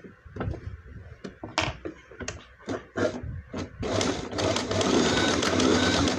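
A domestic electric sewing machine, with a run of light clicks and knocks as the fabric and strap are set under the presser foot. About four seconds in the machine starts stitching and runs steadily to the end, loudest here.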